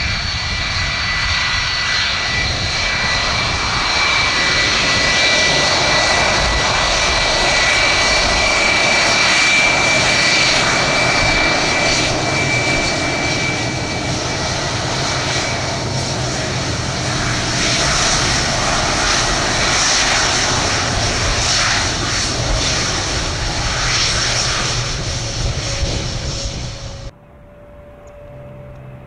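Jet airliner's engines running loud and close, a steady roar with a high whine that fades out about halfway through. The roar cuts off suddenly near the end.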